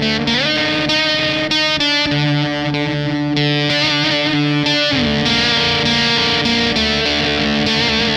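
Electric guitar played through a fuzz pedal: sustained, heavily distorted notes, with a note bent upward just after the start, a quick run of fast-picked notes about two seconds in, and a note bent down about five seconds in.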